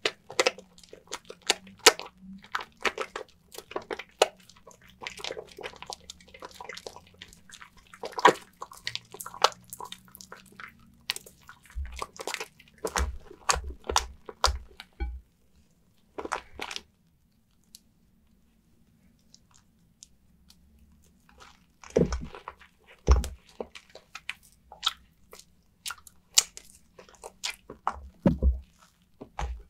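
Soaked, mushy bar soap and its lather being squeezed and worked: dense, irregular crackling and squelching. The sounds stop for a few seconds midway, then start again.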